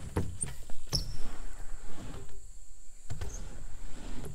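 BMX bike rolling and hopping on a ramp deck: tyres rumbling over the surface with scattered knocks and clatters from the wheels and frame landing. A faint steady insect drone runs underneath.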